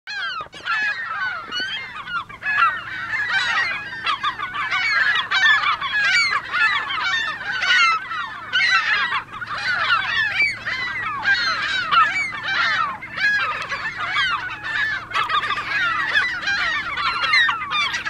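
Many gulls calling at once: a continuous din of overlapping short, rising-and-falling cries.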